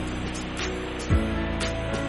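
Background music with a steady beat: held chords, light regular ticks, and a deep drum thump about a second in.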